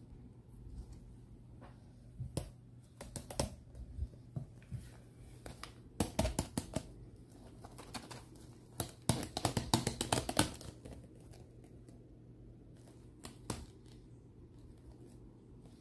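Gloved hands picking up and handling a cardboard toy box: clusters of sharp taps and clicks, loudest about six seconds in and again from about nine to ten and a half seconds in, with scattered single ticks between.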